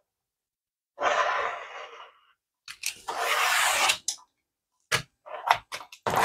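Rotary cutter drawn along a quilting ruler through cotton fabric on a cutting mat, giving a crunchy slicing hiss twice: about a second in and again, louder, near the middle. Several short knocks follow near the end.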